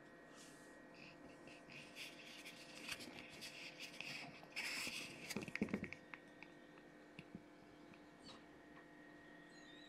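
Rustling and clicking of something being handled, loudest about four to six seconds in, over a steady electric hum.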